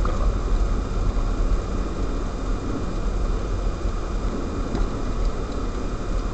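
Steady engine and tyre noise of a car driving on a snow-covered road, heard inside the cabin, with a deep rumble and an even rush.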